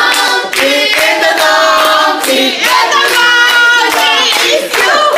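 A group of people singing together with hand claps, holding long notes in chorus.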